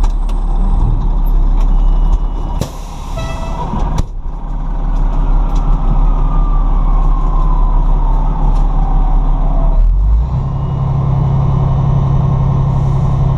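A 2003 Pierce Dash fire truck idles with a steady diesel hum. About three seconds in there is a short air-brake hiss. Over the next six seconds a faint whine falls slowly in pitch, typical of a mechanical siren winding down, and near the ten-second mark the engine note shifts to a steadier hum.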